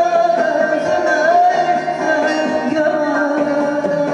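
A Turkish folk song played live on bağlama and electronic keyboard, with a woman singing the melody.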